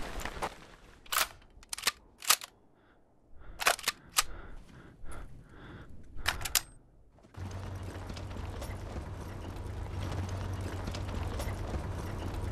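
Scattered single gunshots, sharp cracks about a second apart in ones and pairs over a quiet background. About seven seconds in, a steady low drone with a hum starts suddenly.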